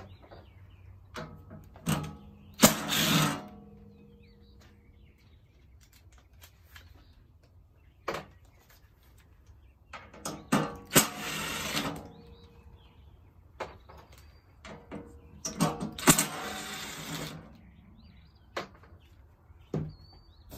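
Cordless impact driver running in three short bursts, each about a second or two long, as it backs out Torx bolts from the compressor's top cover. Scattered clicks and taps of the tool and bolts being handled fall between the bursts.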